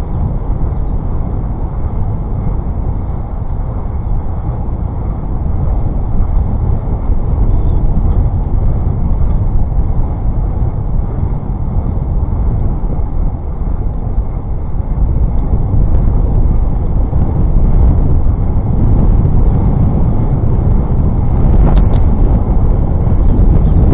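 Steady low rumble of road traffic and wind on the microphone, heard from a moving bicycle in city streets, growing somewhat louder in the second half.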